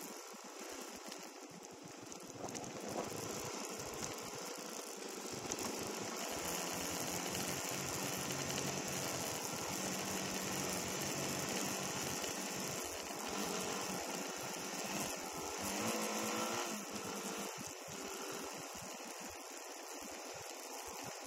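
Dirt bike engine running at low revs under a rapid mechanical rattle, with the engine note rising and falling a little about two-thirds of the way through.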